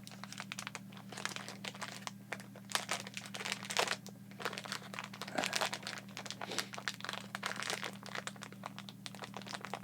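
Crinkly plastic candy packaging being handled and opened: irregular crackling and rustling throughout, over a steady low electrical hum.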